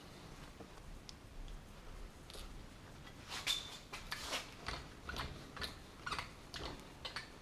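Light clicks and scrapes of an F-clamp's screw handle being turned against a valve spring, compressing it on the cylinder head. They start about three seconds in and come about twice a second.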